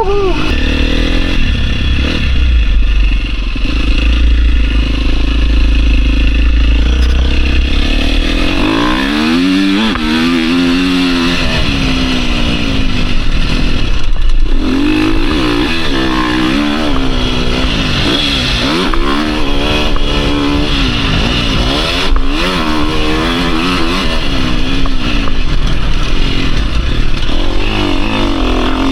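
KTM 350 SX-F's single-cylinder four-stroke engine being ridden hard on a motocross track, its pitch climbing and dropping over and over as the throttle is opened and shut. For the first several seconds a heavy low rumble dominates, and two short sharp knocks come partway through.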